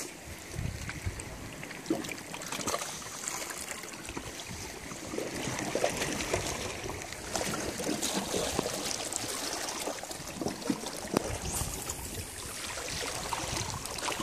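Sea water lapping and trickling at the water's edge, a steady watery wash with scattered small clicks and splashes.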